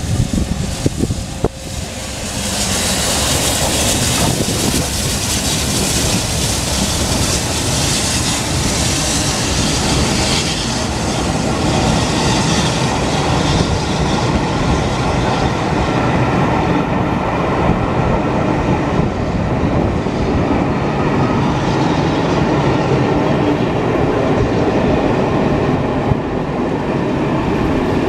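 Train hauled by a BR Britannia-class 7MT steam locomotive running past, a loud continuous rush of wheels on rail with a clickety-clack from the carriages. It swells suddenly about two seconds in, with a hissy edge over the first several seconds that then fades.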